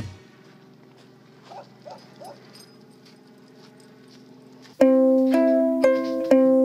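Three faint dog barks about half a second apart over a low steady hum. A little under five seconds in, plucked ukulele music starts abruptly and is the loudest sound.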